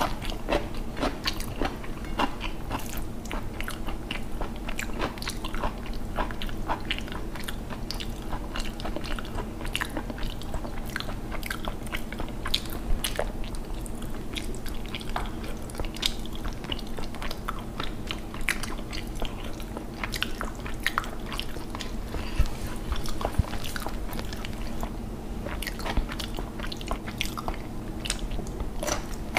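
Close-up eating sounds: chewing, smacking and crunchy bites of raw cucumber, with the wet squish of fingers kneading rice and curry on a plate, many small clicks throughout. A steady low hum sits underneath.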